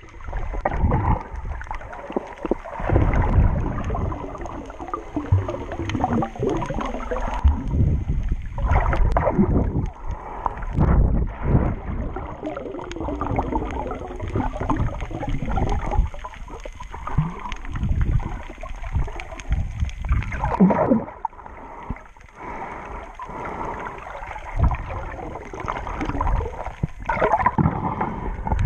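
Sea water sloshing and gurgling around a camera held underwater, with muffled swishes and bubbling surges as it moves through the water.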